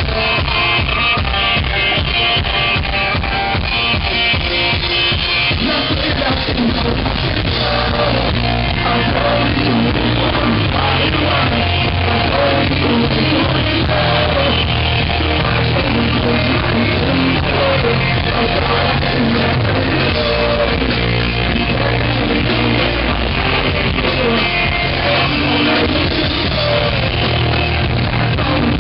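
Rock band playing live: electric guitars, bass and drum kit with a lead singer's voice. The bass and drums come in fuller about six seconds in.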